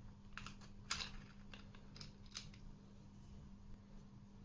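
Scattered small metallic clicks and scrapes of an Allen key turning the CO2 cylinder screw in the grip base of a Beretta M92A1 CO2 BB pistol, the sharpest click about a second in.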